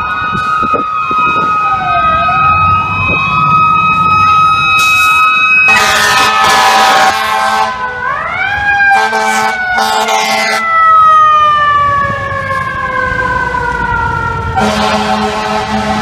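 FDNY fire engine sirens and air horns. Sirens wail up and down, with loud air horn blasts at about six seconds, again around nine to ten seconds, and near the end. One siren rises sharply about eight seconds in, then slowly winds down.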